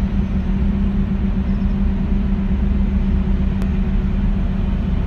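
Tugboat's diesel engines running steadily as it pushes its bow against a container ship's hull: a loud, even low drone with a steady hum.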